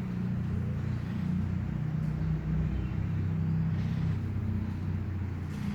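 Steady low engine rumble with a held hum, like a motor vehicle running at idle.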